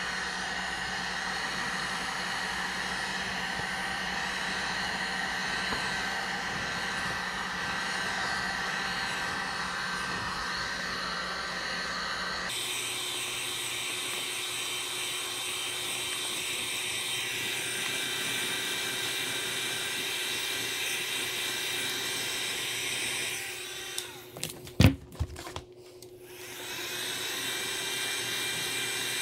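Electric heat gun running steadily, its fan blowing hot air to shrink heat-shrink wrap over a lithium battery pack. Near the end it drops away for a few seconds with a few sharp clicks, then comes back on and builds up again.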